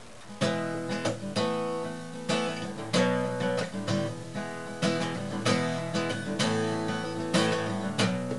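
Acoustic guitar strummed in a steady rhythm of chords, starting about half a second in: the instrumental intro before the singing.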